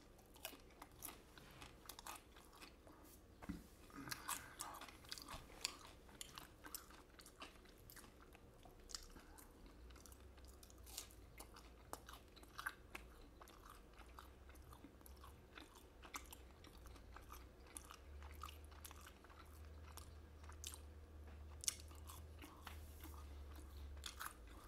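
Quiet close-miked chewing of fried Chinese takeout food, with scattered crisp crunches and clicks, a few louder bites standing out.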